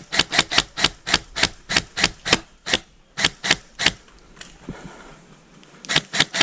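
Running footsteps crunching on rough ground, about four steps a second, stopping for about two seconds in the middle, then a few more steps near the end.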